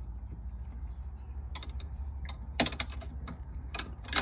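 Scattered sharp metallic clicks and clinks of hand tools working on the fittings of a motorcycle air-ride compressor, several close together in the second half, over a steady low hum.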